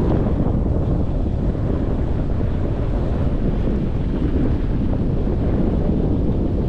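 Wind buffeting the microphone of a camera carried on a snowboard run: a loud, steady, low rush.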